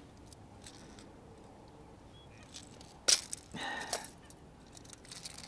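Handling noise from a redfish in a landing net on a kayak: a sharp rustle or knock about three seconds in, then a longer rasping scrape just after, over low background.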